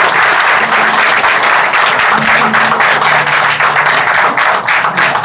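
A crowd of wedding guests applauding, the dense clapping thinning into separate claps near the end, with soft music underneath.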